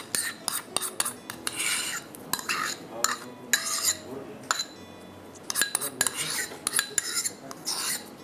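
A metal spoon scraping and clinking against bowls as cream cheese is scooped from a small bowl into a glass mixing bowl: a string of short scrapes and clinks, with a brief lull about halfway through.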